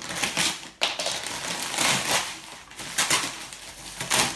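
A padded paper mailer being cut open with scissors and torn apart by hand: an irregular run of rustling and tearing noises, with bubble wrap crinkling as it is handled near the end.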